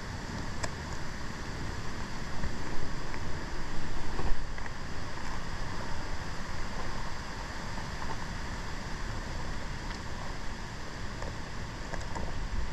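Wind buffeting the microphone: a steady rushing with a low rumble that gusts louder a few seconds in, with a few faint clicks.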